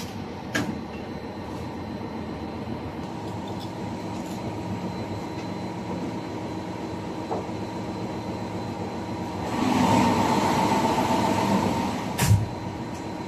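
Steady drone of a ship's running machinery. About nine and a half seconds in it swells to a louder rush for two to three seconds, then a single thud near the end, with a light click early on.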